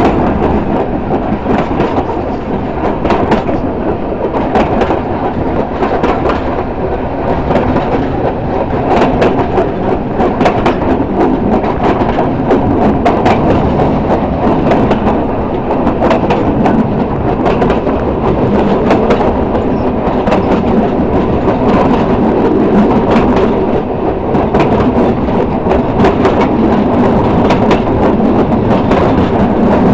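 A train running along the track, heard close by: a loud, steady rumble with frequent sharp clicks and clacks from the wheels on the rails.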